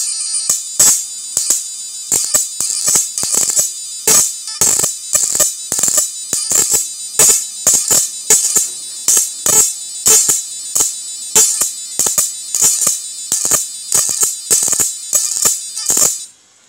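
An 8-foot 7000 W IGBT electric fishing machine is arcing across its output leads. It gives a steady high-pitched whine broken by irregular loud sparking cracks, and it cuts off suddenly near the end.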